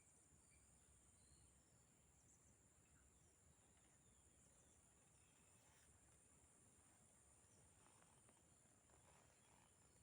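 Near silence: faint steady background noise with a constant high-pitched hum.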